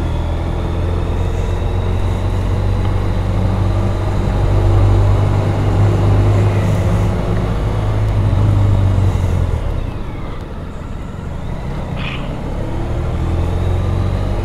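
Motorcycle engine running on the move, with road and wind noise; the engine eases off about ten seconds in, then picks up again.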